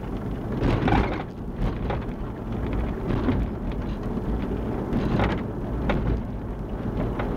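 Cabin noise of a 1997 Chevy Blazer driving over a cracked road: steady low road and tyre rumble with a few brief knocks. The clunk that the owner suspects comes from worn torsion bar mounts is, by his own account, not showing up.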